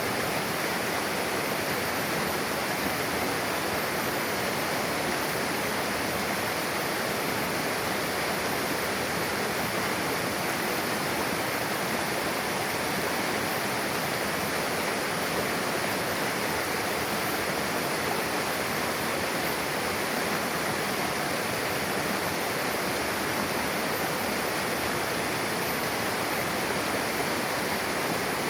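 Mountain river rushing over rocks where two streams meet: a steady, even roar of flowing water that does not change.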